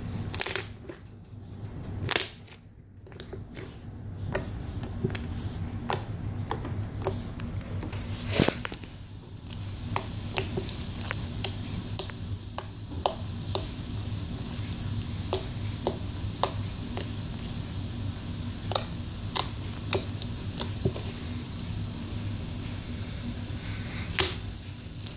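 Slime being poked: irregular clicks and pops, one to a few every second, over a steady low hum.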